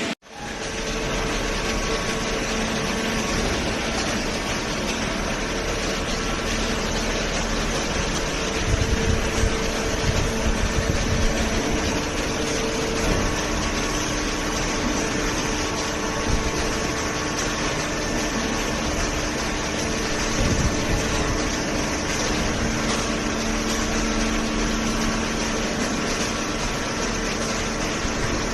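Industrial hydraulic baling press running: a steady mechanical hum with two held tones, and heavier low rumbling around eight to twelve seconds in and again briefly about twenty seconds in.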